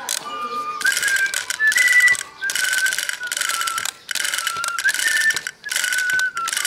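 Plastic Doraemon drummer toy playing a thin electronic melody of held notes over a fast clicking clatter from its moving mechanism. The clatter breaks off briefly several times, then starts again.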